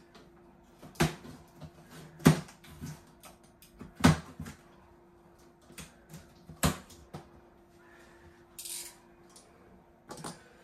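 A cardboard box being handled and worked open: a string of sharp knocks and taps on the cardboard, about four loud ones a second or two apart, with a short scraping rustle near the end and a faint steady hum underneath.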